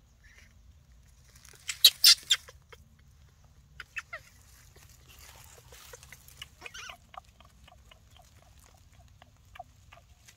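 Short squeaky animal calls: a loud cluster about two seconds in, then a run of softer, quicker calls, several a second, through the second half.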